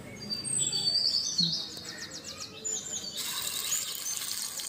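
Small birds chirping with quick, high calls for the first three seconds. About three seconds in, a steady sizzle starts as smashed onion goes into the hot spiced oil in a small pot.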